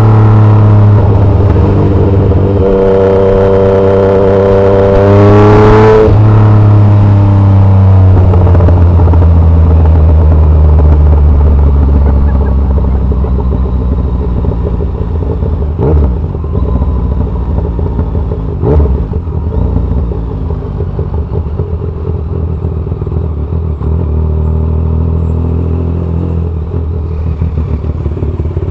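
Yamaha MT-09's three-cylinder engine through an SC Project exhaust, climbing in revs under throttle, then shutting off about six seconds in and running lower and steadier as the bike slows. Two sharp cracks come on the overrun near the middle.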